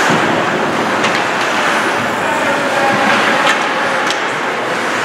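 Ice hockey game noise in a rink: a steady hiss of skates and crowd, with a few sharp clacks of stick and puck.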